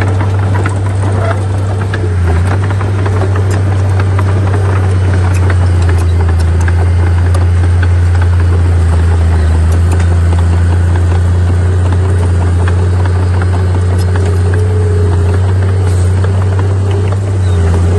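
Heavy diesel engine of an earthmoving machine running steadily, with scattered rattles and clanks over its low drone.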